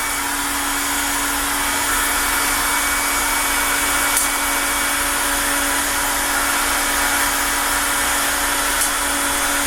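A high-speed electric motor running steadily with a constant whine and rushing noise, as the CNC router setup is fired up.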